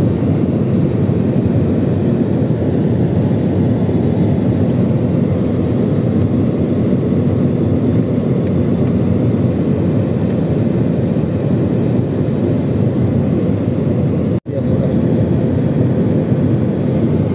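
Steady cabin noise of an Airbus A320-family jet airliner, a loud engine-and-airflow rumble heard through the cabin during the descent towards landing. The sound drops out for a split second near the end.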